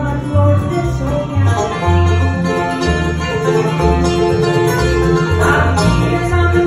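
Live bluegrass band playing: fiddle, acoustic guitar, mandolin, banjo and upright bass, the bass plucking a steady beat underneath.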